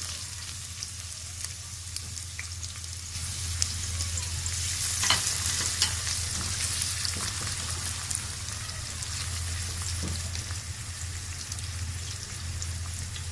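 Chopped onion frying in hot corn oil in a pot, a steady sizzle that swells about four seconds in, with a few sharp clicks as it is stirred.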